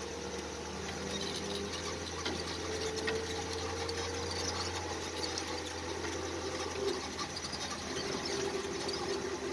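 1941 Dodge WC truck driving, heard from inside the cab: a steady low engine hum with a higher whine that comes and goes, and light rattles.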